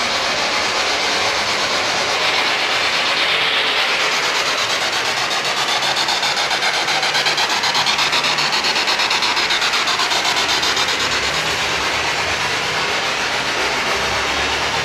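Loud, continuous radio static from a ghost box (spirit box) sweeping through radio frequencies, with a fast, even flutter.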